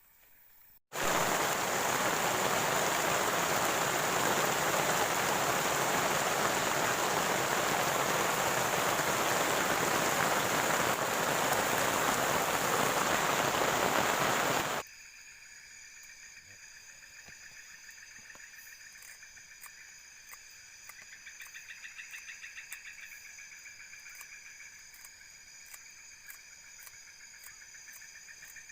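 Heavy rain pouring down, starting suddenly about a second in and cutting off about halfway through. It gives way to a quieter night chorus of crickets, frogs and other insects: several steady high trilling tones with a regular ticking.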